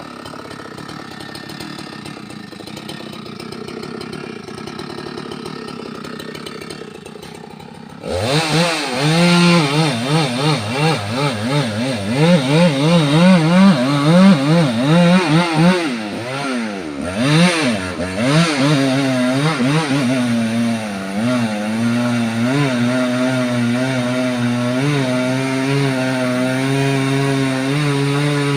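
A chainsaw engine running, fairly quiet at first, then loud from about eight seconds in, its pitch rising and falling over and over as the throttle is worked, settling to a steadier pitch near the end.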